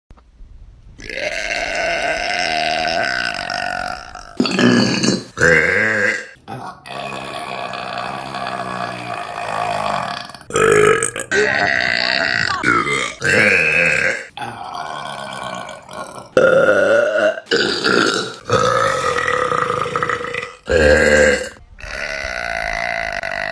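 A string of loud burps from different women, one after another with abrupt cuts between them. Some are long and drawn out for several seconds, others short.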